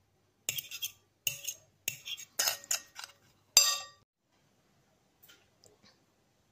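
A metal fork clinking against a bowl while beating raw eggs: a quick run of taps and scrapes in clusters, the loudest near the end, stopping about four seconds in. A few faint clicks follow shortly before the end.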